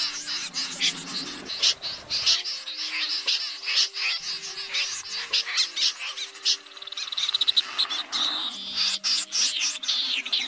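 Common snipe calling: many short calls from several birds overlapping densely, with a fast, even run of ticks about seven seconds in.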